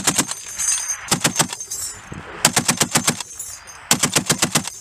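M2 Browning .50 calibre heavy machine gun firing three short bursts of about five to seven rounds each, roughly a second and a half apart.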